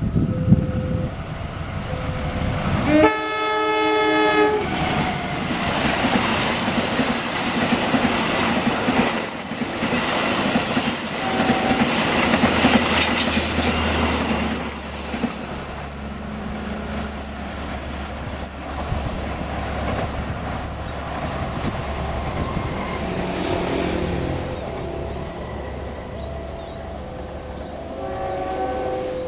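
Passenger train horn blowing one blast of about a second and a half a few seconds in, then the train passing close by with its wheels clattering over the rail joints and rumbling. An alternating two-note warning tone sounds again near the end as the train goes.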